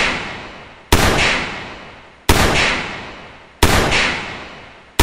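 Gunshots, four in a row a little over a second apart, each a sharp crack followed by a long echo that dies away before the next.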